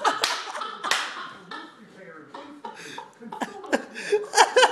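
Indistinct voices of people in a room, with two sharp breathy bursts, like coughs, in the first second and talk picking up again near the end.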